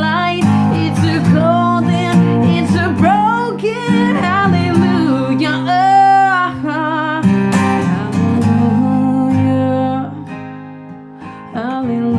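A singer's voice with vibrato over acoustic guitar, in a slow ballad; a long held note with vibrato comes about halfway through, and the music drops quieter near the end.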